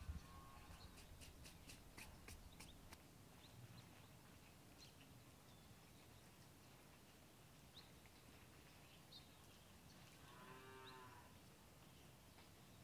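Near silence: faint room tone with a few soft clicks in the first three seconds and scattered faint chirps. About ten seconds in there is a single distant animal call lasting about a second.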